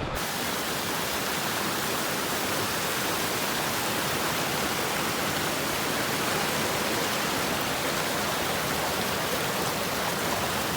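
Steady rush of fast-flowing water, an even full hiss with no breaks.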